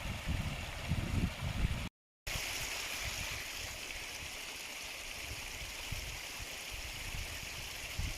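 Low, irregular buffeting for about the first two seconds, then, after a short cut, the steady rush of a stream running.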